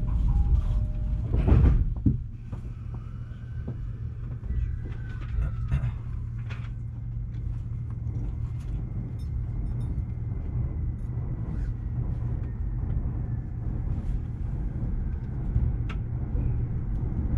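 Commuter electric train running at speed, heard from inside the car: a steady rumble of wheels on rail with a faint motor whine that slowly shifts in pitch and a few scattered clicks. About a second and a half in there is a brief loud rush.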